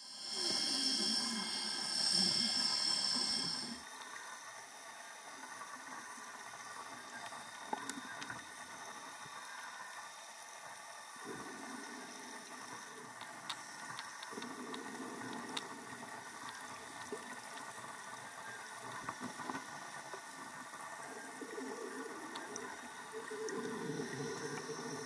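Scuba diving heard underwater: a diver breathing through a regulator, with exhaled bubbles coming in bursts a few seconds long over a steady underwater hiss. Louder for the first few seconds, with a few sharp ticks.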